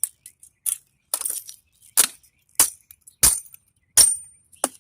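Pieces of metal from a dismantled desktop computer clinking and clattering as they are handled and dropped: a run of about eight sharp knocks, two of them ringing briefly.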